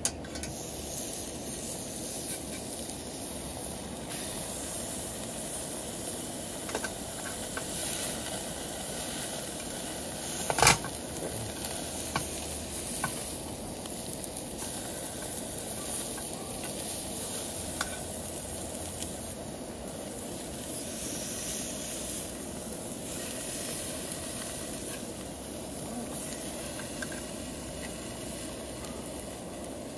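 Raw steaks sizzling on the hot stamped steel grill plate of a Coleman RoadTrip Party propane grill, starting suddenly as the first steak goes down, with a steady hiss. Small clicks of metal tongs on the plate, and one sharp metal knock about ten seconds in.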